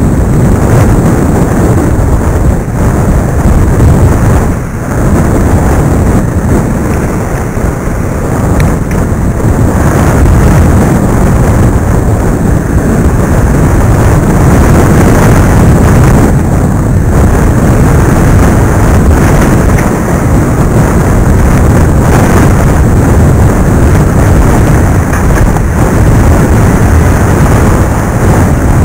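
Loud wind buffeting the built-in microphone of video glasses worn while riding a bicycle: a steady, deep rumble of wind noise that briefly eases about five seconds in.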